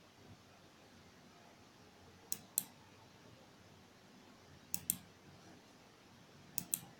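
Three quick double-clicks of a computer's click button, each pair of clicks a fraction of a second apart and the pairs about two seconds apart, as folders and files are opened on a laptop.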